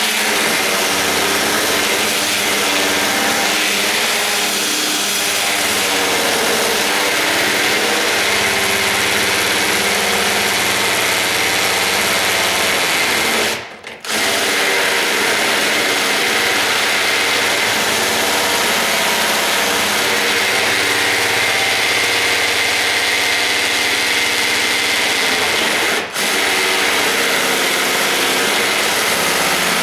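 Electric drill running steadily, driving a rasp bit that grinds at a door strike plate opening; the motor stops briefly twice.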